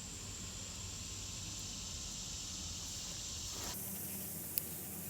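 Steady high-pitched chirring of insects, likely crickets, that cuts off abruptly about three-quarters of the way through, leaving a quieter background with two short sharp clicks near the end.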